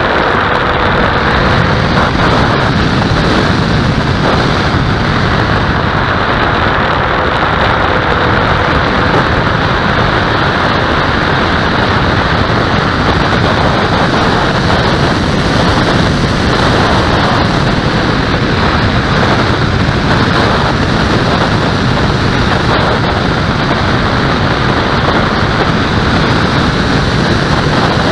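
Wind rushing steadily over the microphone of a camera mounted on an aircraft in flight, with a faint wavering tone underneath at times.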